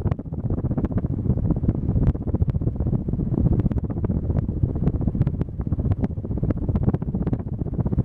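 Casablanca Lanai ceiling fan running, its blade draught buffeting the microphone as a loud, low rumble with irregular faint clicks throughout.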